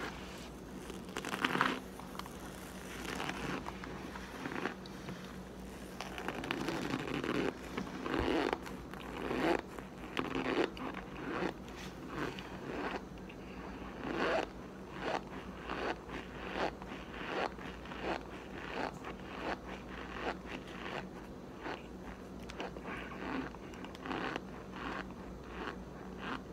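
Close-up chewing of compressed cornstarch chunks: a crunching, rasping sound with each chew. The chews are sparse at first, then about eight seconds in they settle into a steady rhythm of a little more than one a second.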